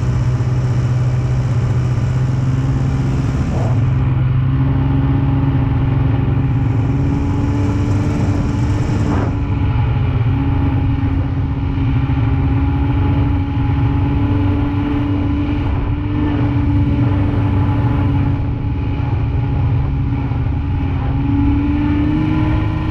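Snowmobile engine running steadily at cruising speed, its pitch drifting only a little up and down. A high hiss comes and goes in the first nine seconds, then drops away.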